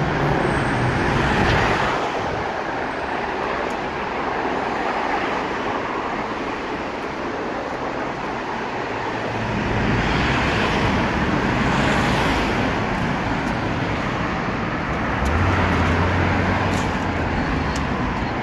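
Steady city road traffic: cars, taxis and vans passing close by, the noise swelling each time a vehicle goes past. Near the end a vehicle's low engine hum joins in.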